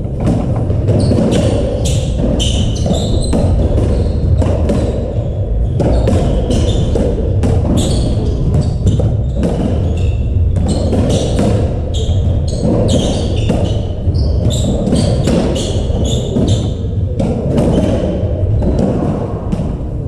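A racketball rally in an echoing squash court: the hollow rubber ball strikes rackets and walls again and again at an uneven pace, with trainers squeaking on the wooden floor between the hits, over a steady low hum of the hall.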